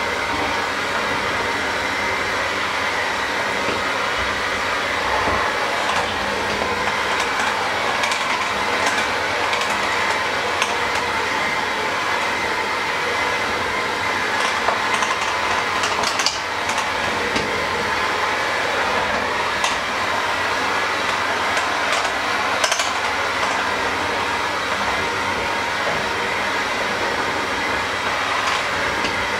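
Handheld electric mixer running steadily, its beaters churning a thick mixture in a stainless steel bowl, with a few sharp clicks here and there as the beaters knock the bowl.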